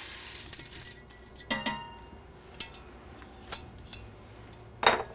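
Rinsed pinto beans slide from a stainless-steel strainer into a stainless pressure cooker, with the rush fading at the start. Then come four short metal knocks and clinks of the strainer against the pot, the loudest near the end.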